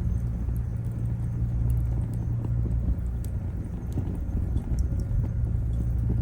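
Wood fire burning, with scattered sharp crackles and pops from the burning firewood over a steady low rumble.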